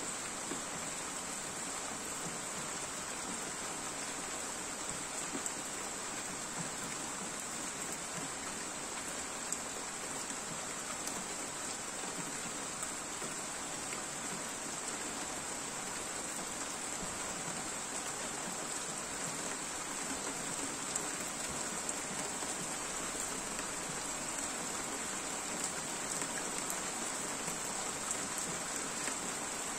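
Steady rain falling, an even hiss with scattered ticks of single drops striking.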